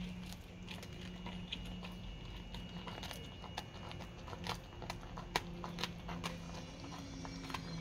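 A dog chewing a raw narrow-barred Spanish mackerel head, teeth crunching on the bone in irregular clicks, over a steady low hum.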